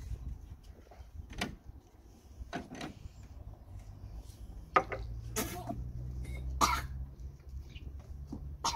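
A boy coughing and gagging on a foul-tasting drink: about half a dozen short coughs and gags spaced a second or so apart, the strongest in the second half.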